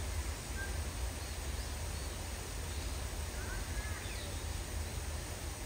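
Steady outdoor ambience on a rainy day: an even hiss over a low rumble, with a few faint short chirps.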